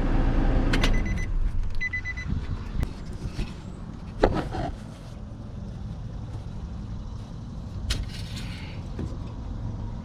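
The 2006 Nissan Pathfinder's 4.0-litre V6 idling with a steady low rumble, run after an oil change so the new oil circulates. A few short electronic beeps sound about one to two seconds in, and a sharp thump about four seconds in.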